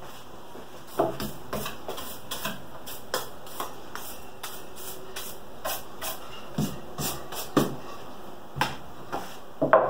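A stiff-bristled hand brush sweeping sawdust off a freshly drilled wooden piece and its board, making an uneven run of short brushing strokes and knocks. A few heavier thumps come in the second half, and the loudest are near the end.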